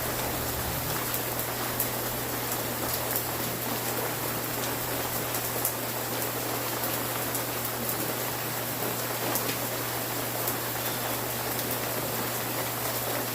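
Steady rain falling, an even hiss with scattered sharp drop ticks, over a steady low hum.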